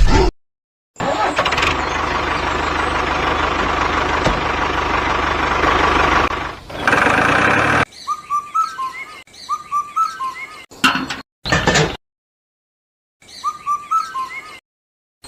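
A motor vehicle's engine running steadily for about six seconds. It is followed by short repeated bird chirps broken up by sudden dead-silent gaps, as if spliced together.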